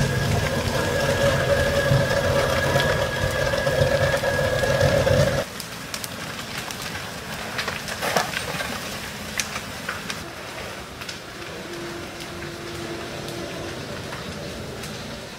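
An engine runs steadily for about five seconds, then cuts off suddenly. After it comes the crackling of a house burning fully involved, with scattered sharp pops, one louder about eight seconds in.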